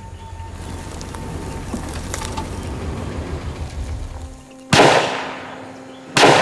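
Two gunshots about a second and a half apart, each sharp and loud with a tail that rings out as it fades. They come after a low rumbling drone that stops just before the first shot.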